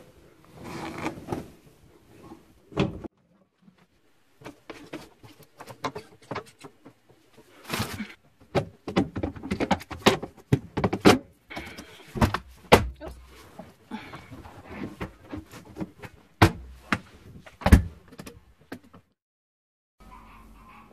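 Laundry being handled at a front-loading dryer: fabric rustling, with a series of sharp knocks and thuds, the loudest in the second half.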